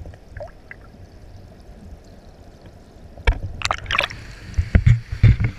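Low, steady underwater hush around a submerged action camera, then from about three seconds in a run of loud knocks and splashing as the camera is pulled up through the surface of the water.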